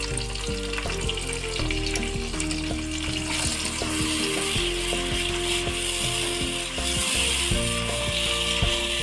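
Biryani masala of fried onion, tomato paste and yogurt sizzling in oil in a wok while a spatula stirs and scrapes through it. The sizzle grows louder about three seconds in, once the stirring starts.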